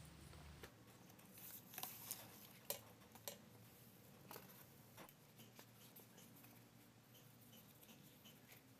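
Faint crinkling and crackling of a fresh banana leaf being folded by hand into a parcel. Small crackles cluster in the first three seconds, the sharpest near three seconds in, then fainter scattered ticks.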